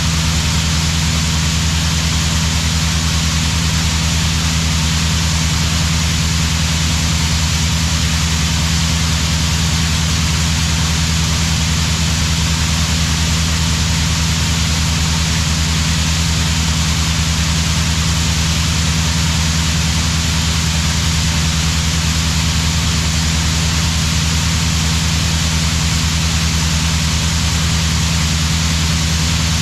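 Heavy farm diesel engine running at a constant speed, with a steady hiss over its low hum.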